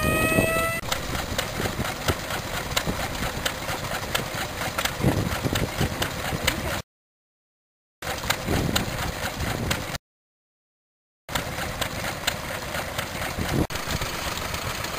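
Small vintage stationary engines running, a steady run of rapid, regular firing knocks. A rising whine cuts off about a second in, and the sound drops out to silence twice in the middle.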